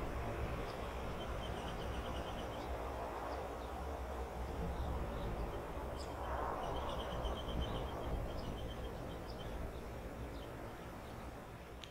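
Four turboprop engines of a C-130 at takeoff power, heard from a distance as a steady low rumble that eases slightly near the end. Small birds chirp over it in quick high series.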